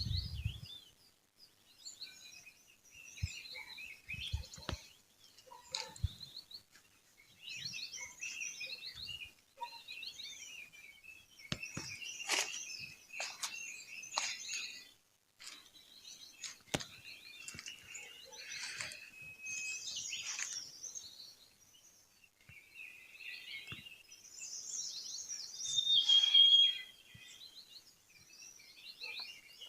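Several small songbirds chirping and twittering in overlapping bursts of high, quick notes, with one louder, held whistled note near the end.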